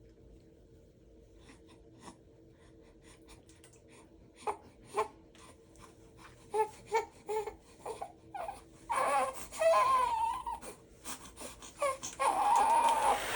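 A one-month-old baby fussing: a few seconds of near quiet, then short whimpering sobs about four seconds in, building into full crying about nine seconds in.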